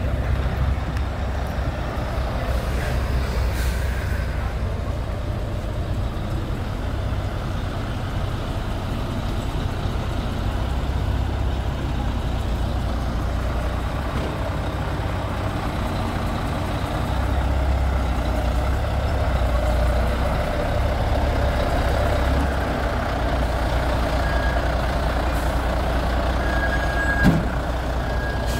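Heavy diesel truck or site plant engine running steadily, a deep rumble with a slight rise in level a little past halfway.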